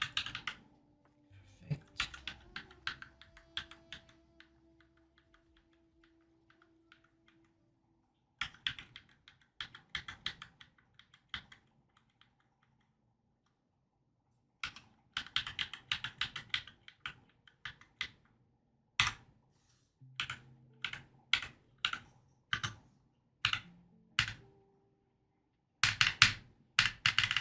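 Keys on a Glorious GMMK 96% mechanical keyboard being pressed one after another in short runs of sharp clicks, with pauses of a few seconds between runs. The switches are being checked one by one on a freshly built board.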